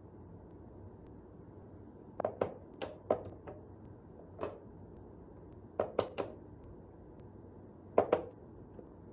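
Wooden whack-a-mole cat toy box knocking as a cat bats at its pop-up mice: sharp wooden clacks in quick clusters of two or three, about a dozen in all, with the loudest pair near the end.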